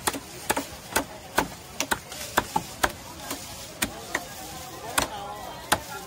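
Heavy machete-style knife chopping through tuna into a round wooden chopping block: a string of sharp chops, about two a second, unevenly spaced.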